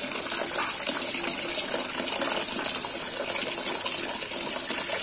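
Small fountain jet splashing steadily into a steel basin of water.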